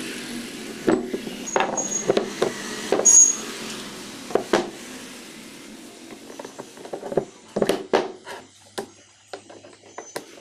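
Steel machine parts (gear shafts, a bearing and a sleeve) clinking and knocking as they are handled and set down. Scattered sharp metallic clinks, a few with a short high ring in the first few seconds, and a quick run of knocks about three-quarters of the way through.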